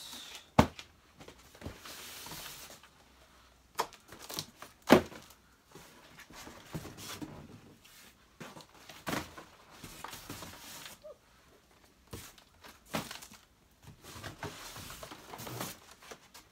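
Stiff cardboard packing being pulled out of a cardboard box and dropped: scraping and rustling of cardboard with several sharp knocks, the loudest about five seconds in.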